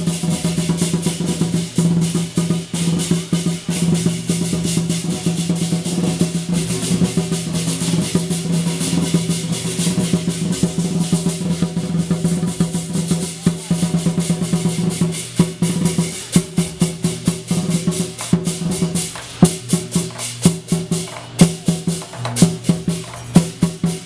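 Temple procession percussion: drums and cymbals beating rapidly and without pause over a steady held tone. About two-thirds of the way in, the strokes thin out into more separate, louder hits.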